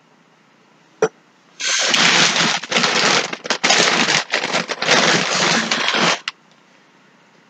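Loud crinkling and rustling of packaging being dug through by hand, in several bursts with short gaps over about four and a half seconds, after a single click about a second in.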